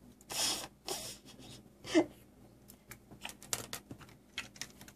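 Rustling and crinkling of a plastic bag with small clicks, in short irregular bursts, with a brief squeak about two seconds in.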